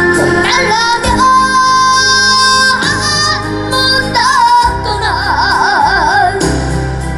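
Young boy singing a slow trot ballad over band accompaniment, holding long notes with a wide, wavering vibrato.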